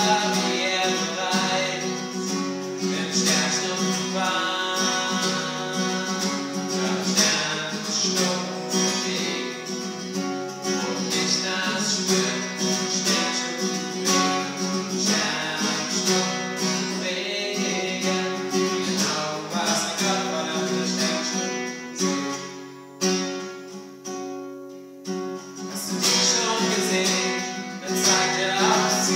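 Acoustic guitar strummed steadily as accompaniment to a singing voice, dropping to a quieter, sparser passage a little past two-thirds of the way through before the full strumming returns.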